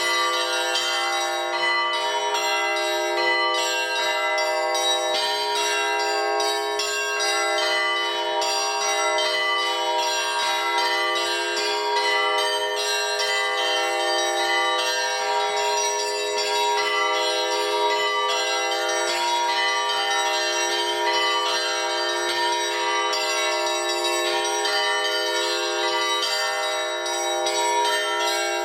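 Russian Orthodox church bells in a festive Christmas peal, played by a single bell-ringer. Several bells are struck in a fast, continuous pattern, and their tones ring on and overlap without a break.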